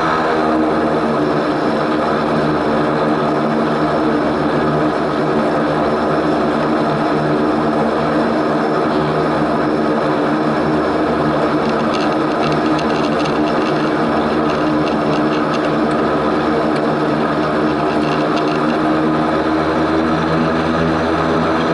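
Antonov An-24's twin Ivchenko AI-24 turboprop engines running, a steady propeller drone with several held tones over a constant rush.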